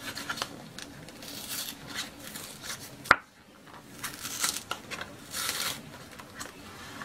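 A paperboard fresh-cream carton being handled and its spout pulled open, with bursts of card rustling and tearing and one sharp click about three seconds in.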